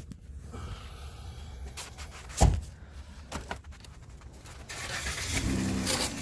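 A single low thump about two and a half seconds in, then near the end the Jeep Grand Cherokee's 5.7-litre Hemi V8 starts and runs steadily. It starts because the starter's corroded plug-in wire connector, which the owner blames on moisture, has just been reseated to scrape its contacts clean.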